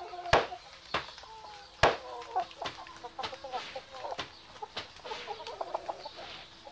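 Wet clothes slapped hard against a stone washing slab, a string of sharp smacks, the loudest two near the start. Hens cluck softly between the slaps.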